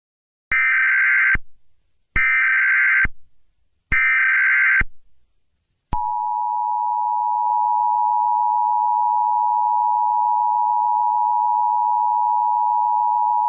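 Emergency Alert System header: three short bursts of data screech, about a second each and a second apart, opening a new alert. About six seconds in, the steady two-tone EAS attention signal starts and holds.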